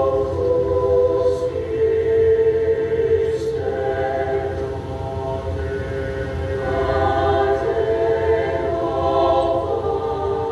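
Mixed choir of men's and women's voices singing long, sustained chords that move to a new chord every few seconds.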